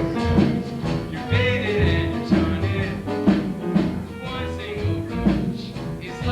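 Music with a steady pulsing bass line and sustained pitched notes, accompanying a stage-show song number.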